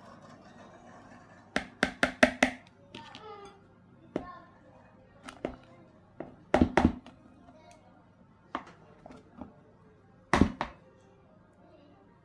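Sharp taps and knocks in short clusters, the loudest near the end: a glass container knocked against a mixing bowl as flour is tipped out of it into batter.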